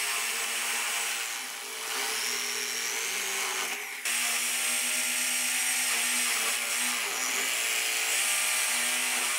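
Electric drill boring a 3/4-inch hole through pine boards: a steady motor whine over the hiss of the bit cutting into the wood. About seven seconds in, the pitch sags briefly under load and then recovers.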